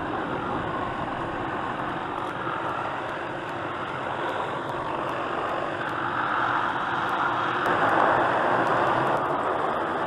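Helicopter running close overhead: a steady rush of rotor and engine noise that grows louder about six seconds in and peaks around eight seconds.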